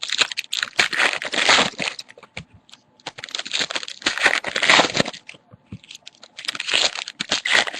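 Trading card packs and cards being handled up close: foil wrappers crinkling and tearing and cards rustling, in several bursts with short pauses between them.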